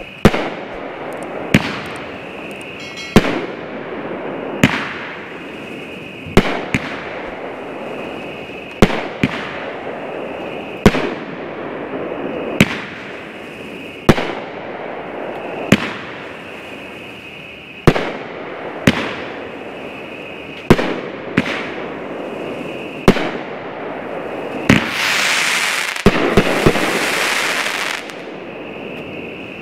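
A 12-shot, 500-gram consumer firework cake firing. Sharp bangs come every one to two seconds as its shots launch and break. Near the end a few quick bangs give way to a couple of seconds of dense crackle.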